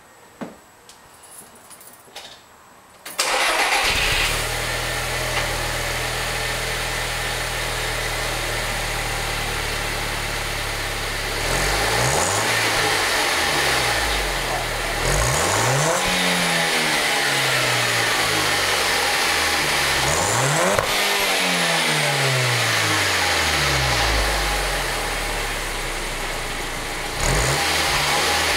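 Exhaust of an Audi B7 A4 2.0T turbocharged four-cylinder, stock exhaust with an 034 high-flow catalytic converter and a Stage 2 APR tune. The engine starts suddenly about three seconds in and settles to a steady idle. From about twelve seconds in it is revved in a series of blips, the pitch rising and falling each time.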